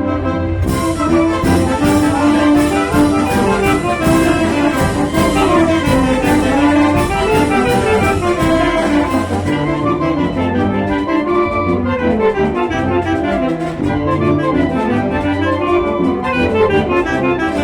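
Mexican wind band (banda filarmónica) playing: a brass melody with trumpets and trombones over a low bass line, with percussion coming in about a second in and keeping a steady beat.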